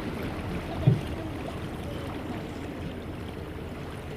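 Steady water noise aboard a small electric hire boat under way, with one short low thump about a second in.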